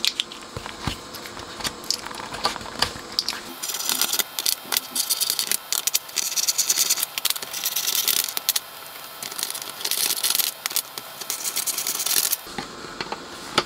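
Hand tools and small metal parts clicking and rattling while a Dynacord DDL 12 delay unit's front panel hardware is undone. A dense scratchy rattle runs from about three and a half seconds in until shortly before the end.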